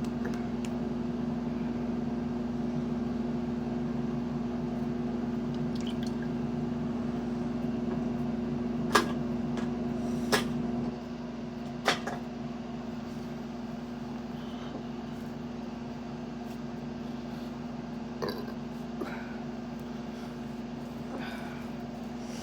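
A steady hum that drops in level about eleven seconds in, with a few short, sharp clicks around the middle.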